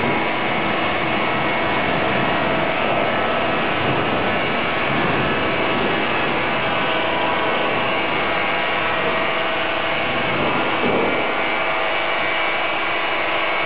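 Flames of a full-body fire burn stunt, a person engulfed in fire, giving a loud, steady rushing noise that holds without a break.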